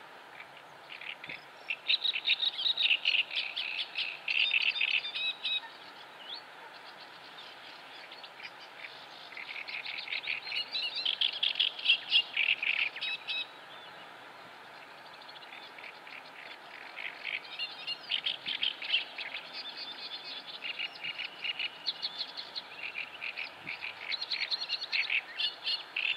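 Bird calls in rapid chattering runs of high chirps, coming in three long bouts: one from about two seconds in, one in the middle, and one through the last third, over faint outdoor background noise.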